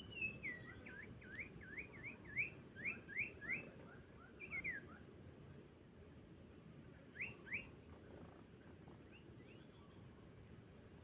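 Small bird, the sirpu, calling: a quick run of sharp sweeping chirps, about three a second, in the first four seconds, then a couple of pairs of chirps and fainter ones near the end.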